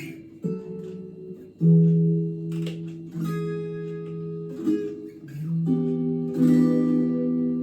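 Gear4Music LA Select strat-style electric guitar, with three single-coil pickups and its stock strings, playing a slow run of strummed chords with a clean, undistorted tone. Each chord rings out and changes about every second or so.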